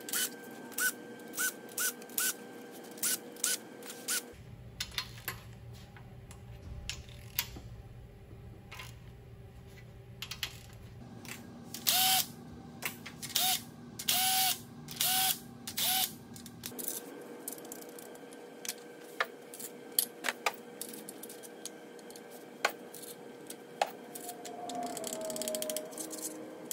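Cordless power driver spinning bolts out of an engine short block in short bursts: about six quick bursts near the start and five louder ones around the middle. Sharp clicks and clanks of loosened bolts and parts come in between.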